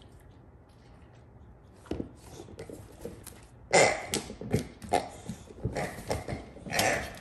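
A Boxer dog pouncing on and mouthing a pink latex pig toy. After a quiet start and one knock, a rapid run of short, loud noises begins a little past three and a half seconds in, from the toy being grabbed and the dog at play.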